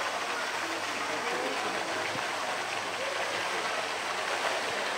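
Steady rush of running water, with indistinct voices murmuring in the background.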